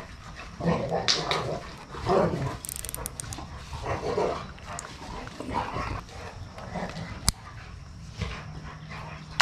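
Dogs barking on and off, short separate barks spaced irregularly, with a single sharp click about seven seconds in.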